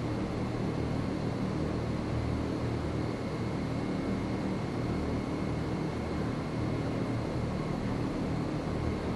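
Steady low rumble and hiss of a large indoor arena's background noise, with a faint steady high whine; no hoofbeats or voices stand out.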